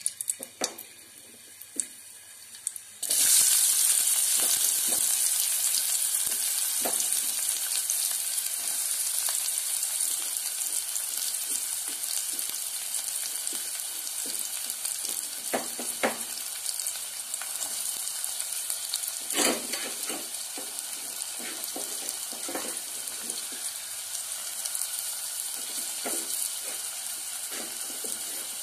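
Chopped onions sizzling in hot oil in a metal pot, the sizzle starting suddenly a few seconds in and slowly easing, with the knocks and scrapes of stirring against the pot. A few clicks come before the sizzle starts.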